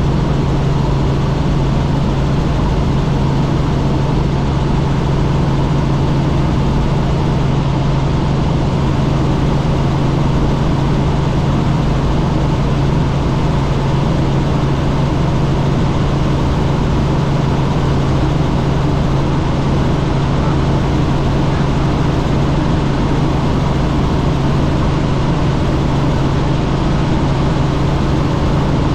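Light helicopter in level flight heard from inside the cabin: a loud, steady drone of engine and rotors with a constant low hum that does not change.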